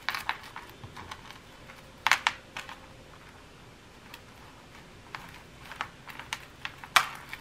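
Costume jewelry handled by hand: scattered small clicks and clinks as a tangled chain is picked through, with a sharper click about two seconds in and another near the end.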